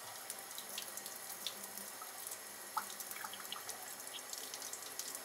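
Thin stream of cold tap water running steadily, pouring over a snake and gloved hands, with small scattered splashes and drips.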